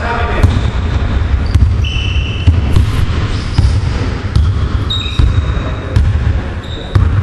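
Basketball being dribbled on a hardwood court: irregular sharp bounces about once a second, echoing in a large gym hall, with a few short high squeaks in between.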